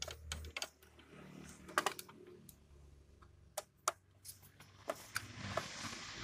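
Irregular sharp clicks and scrapes of a screwdriver turning a screw in the metal frame of a Canon iR 5075 photocopier. A low hum runs under the first second, and a longer rasping scrape comes near the end.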